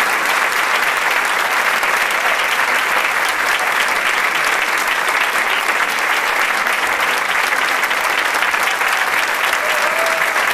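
Audience applauding steadily at a curtain call, a dense even clapping.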